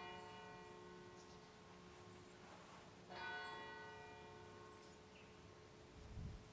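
Church bell striking slowly: one stroke about three seconds in, with the previous stroke still ringing out at the start. A short low rumble near the end.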